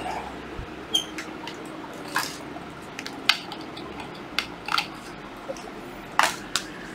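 Scattered light clicks, clinks and knocks of hard plastic and metal power tools being handled and set down on a tiled floor, about a dozen separate sounds.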